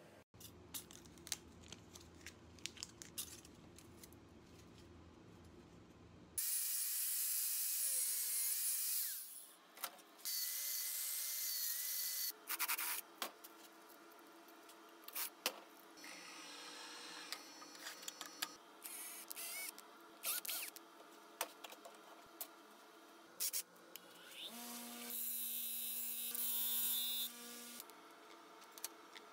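A handheld power tool running in several bursts of two to three seconds on steel parts, some bursts with a steady motor whine, with clicks and taps of metal being handled in between.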